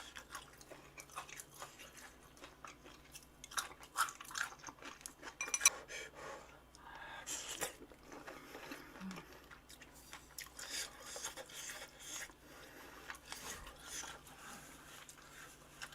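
Close-miked chewing of crunchy food from a spread of spicy chicken feet, cartilage and gizzards, with irregular crunches and bites. The sharpest crunch comes about five and a half seconds in.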